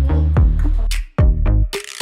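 Background electronic music with a drum-machine beat: punchy kick drums over bass notes, and a crash of cymbal or snare noise near the end.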